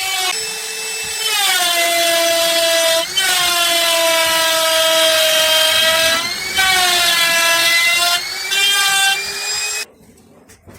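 Electric power tool motor whining at high speed while working wood. Its pitch sags about 1.5 s in as it takes load, holds lower, then climbs back about 6 s in. It eases off briefly a few times and stops sharply near the end.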